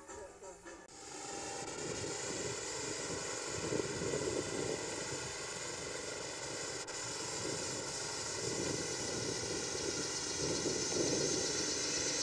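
Steady rushing background noise with a faint hum, starting about a second in and swelling a few times. No clear animal sounds are heard.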